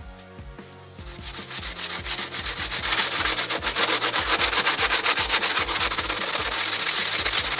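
Hand sanding a fibreglass layer on a car wing with abrasive paper: quick back-and-forth rubbing strokes that start about a second in and grow louder. Background music with a steady beat runs underneath.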